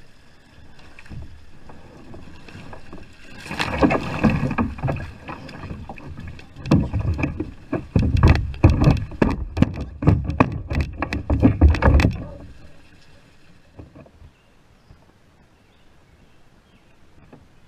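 Water splashing, then rapid knocks and rattles as a largemouth bass thrashes in a landing net against a plastic kayak. The knocks are loudest in a dense run in the middle and die away about two-thirds of the way through.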